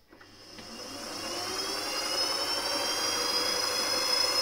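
A mill-drill's spindle motor starting up: its whine rises in pitch over about two seconds, then runs steadily.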